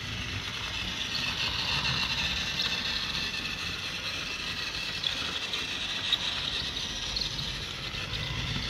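Battery-powered Mattel TrackMaster toy engine running on plastic track: a steady high whir of its small motor and gears over a low rattle of wheels on the track, with two small clicks about five and six seconds in.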